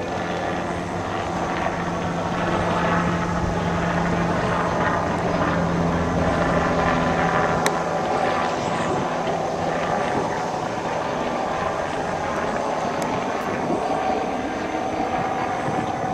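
Steady engine drone, with a low hum that is strongest in the first half and weakens about halfway through, and a single sharp click just before that.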